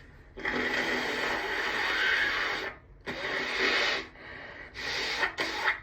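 A woman with allergies breathing noisily through her nose between sneezes. There is a long rush of breath of about two seconds, a shorter one, then two quick ones near the end.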